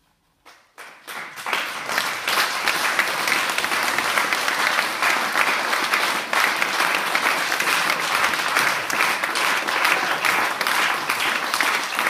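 Small audience applauding. It starts with a few scattered claps in the first second and swells within about two seconds into steady, loud clapping.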